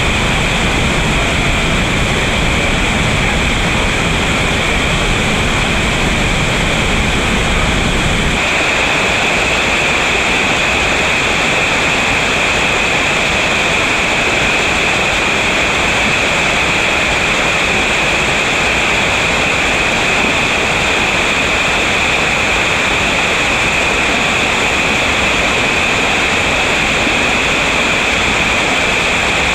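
Steady rush of a waterfall pouring into whitewater. About eight seconds in, the deep rumble drops away abruptly and a thinner, hissier sound of falling water carries on.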